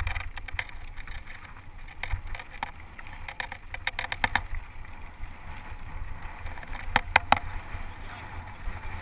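Mountain bike riding over a dirt track, heard from a helmet camera: wind rumble on the microphone with the bike rattling and clicking over the bumps, and three sharp clacks close together about seven seconds in.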